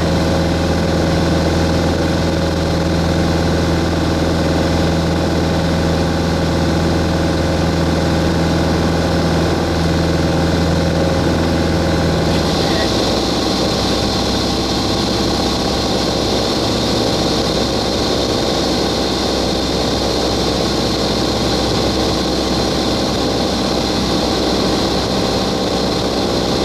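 Cabin noise of a Grumman AA-5A Cheetah in flight: its four-cylinder Lycoming piston engine and propeller running as a steady drone. About halfway through, the drone's tone changes abruptly, lower and rougher, with a brighter high hum.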